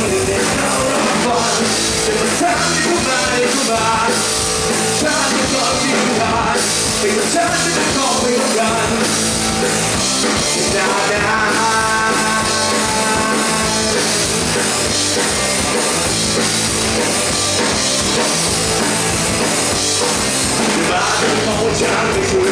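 Live rock band playing at full volume: drum kit, bass and electric guitar.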